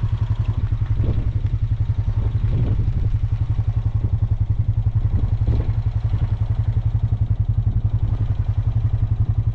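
A vehicle's engine idling steadily, a low rumble with a fast, even pulse.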